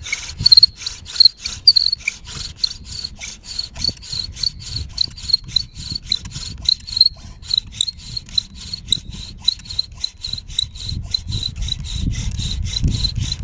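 Bow drill being worked: a dry-wood spindle spun back and forth in a wooden hearth board, each bow stroke giving a rasping, squealing friction sound, about three to four strokes a second. A lower grinding grows louder near the end as the drilling builds heat toward an ember.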